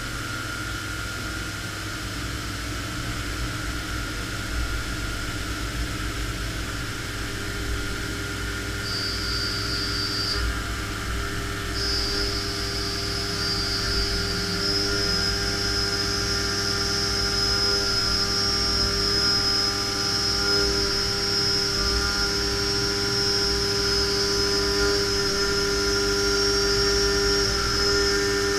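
CNC vertical machining center milling a V8 engine adapter plate, with the spindle and cutter running steadily under coolant spray. A high-pitched cutting whine comes in about a third of the way in, breaks off for a moment, then holds steady.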